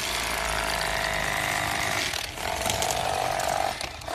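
Electric fillet knife buzzing steadily as it cuts into a catfish, dipping briefly a couple of times as the blades work through the fish.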